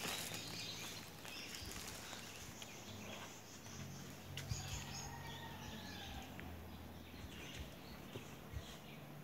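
Outdoor ambience with birds chirping and calling faintly, over a low steady hum that comes in for a few seconds midway.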